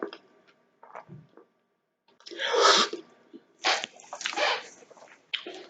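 Close-miked wet chewing and smacking while eating chili cheese fries, in irregular bursts, the loudest about two and a half seconds in.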